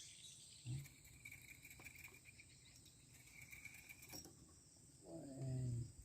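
Faint insects chirring in a thin high band that comes and goes, with a brief murmur of a man's voice near the end.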